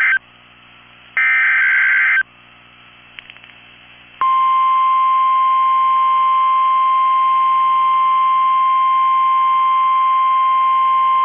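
Emergency Alert System SAME header data bursts: two harsh, buzzy digital bursts about a second long each, ending about two seconds in. After a short pause, the NOAA Weather Radio 1050 Hz warning alarm tone starts about four seconds in and holds steady. Together they announce a new warning message.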